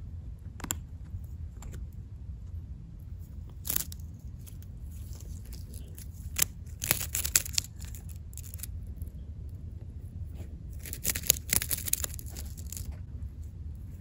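Guinea pig biting and tearing at a dried-grass broom chew toy: crisp crunching and tearing snaps in clusters, densest about seven seconds in and again around eleven to twelve seconds in, over a steady low hum.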